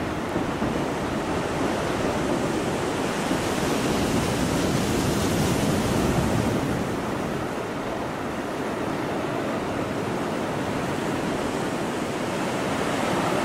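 Sea surf washing over a rocky shore and concrete slipway, with wind on the microphone; the wash swells about five seconds in.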